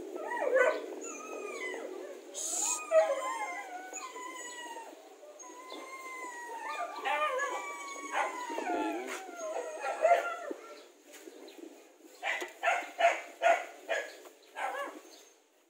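An animal whining and howling in several overlapping cries that glide in pitch, mostly falling, then a quick run of about six short yelps near the end.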